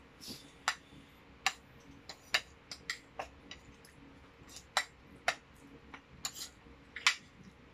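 Metal spoons and forks clinking against ceramic dinner plates as people eat: sharp, separate clinks at irregular intervals, roughly one a second.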